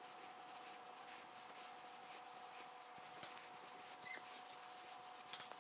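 Faint workshop room tone with a steady low hum, broken by a single sharp click about three seconds in and two brief high squeaks, one about four seconds in and one at the end.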